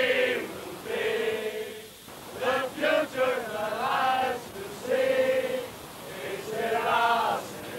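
A group of men singing a celebration chant together, in phrases of a second or two with some held notes.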